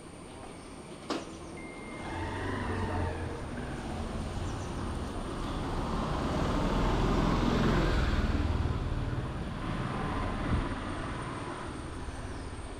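A large motor vehicle passes, its engine and road noise building up to a peak about eight seconds in and then slowly fading. A sharp click comes about a second in, followed by a brief high beep.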